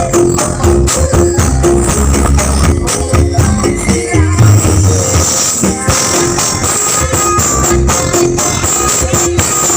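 Loud dance remix music with heavy bass and fast jingling, tambourine-like percussion. The bass drops out for a moment about five seconds in, then returns.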